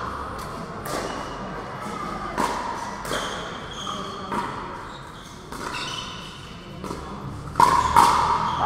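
Pickleball rally: paddles hitting the plastic ball with sharp pops, about one every second or so, the last two, close together near the end, the loudest, over background chatter in the hall.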